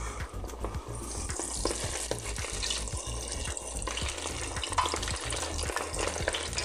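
Cornstarch-coated chicken feet deep-frying in hot oil in a deep fryer's wire basket: a steady crackling sizzle that grows louder about a second in.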